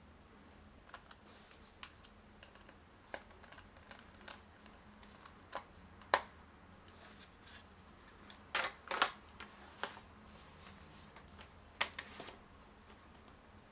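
Irregular light clicks and taps of small hard objects being handled, with a cluster of louder clicks a little past halfway.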